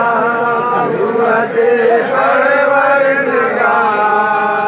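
Men chanting in a crowd, their voices holding long drawn-out notes that slide up and down, with a brief dip about a second and a half in.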